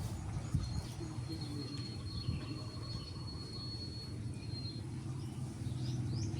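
Outdoor background sound: a thin, steady high whine held for about four seconds, then a few quick chirps near the end, over a low rumble.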